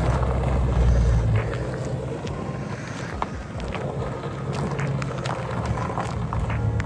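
Car engine revving hard as the car does donuts in the snow, loudest in the first second or so, easing off, then building again a few seconds later. Wind buffets the microphone.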